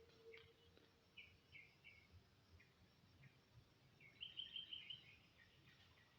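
Near silence with faint bird chirps, including a quick run of chirps about four seconds in.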